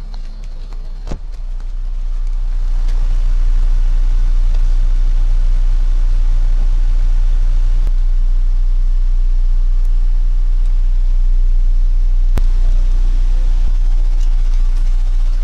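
Car engine idling: a steady low rumble that swells in over the first few seconds and then holds. A sharp click comes about a second in and another near the end.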